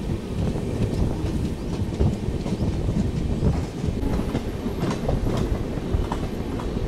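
Jan Shatabdi Express passenger train running, heard from inside a coach: a steady low rumble of the wheels on the rails, with scattered uneven clacks over the track.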